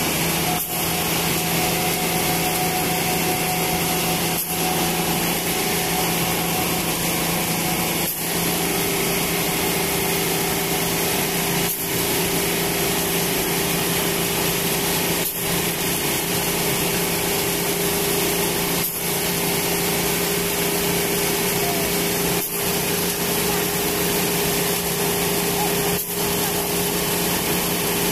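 Concrete mixer truck's diesel engine running steadily as the truck pours concrete down its chute, with brief dips in level about every three and a half seconds.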